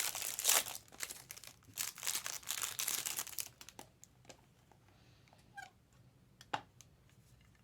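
Crinkly wrapping being handled, a dense crackling rustle that stops about three and a half seconds in, followed by a few faint clicks.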